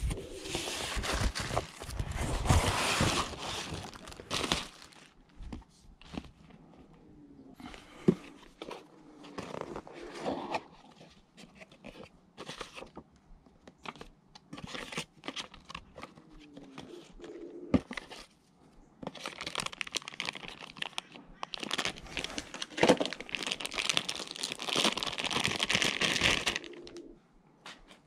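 Cardboard packaging being torn and ripped open by hand, with crinkling and rustling of the packing, in two long stretches: near the start and again from about 19 s to 27 s. Scattered small clicks and knocks of the box being handled come in between.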